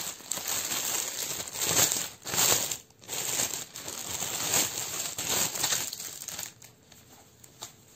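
Thin clear plastic packaging bag crinkling and rustling as it is opened and handled and the hairbands are pulled out of it, in several louder surges, dying down over the last two seconds.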